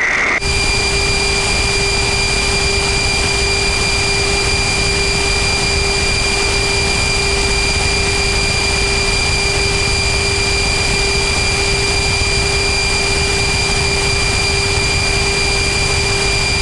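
Jet aircraft cockpit noise heard through the crew intercom: a steady rushing roar of air and engine with a constant low hum and two high, unchanging whines.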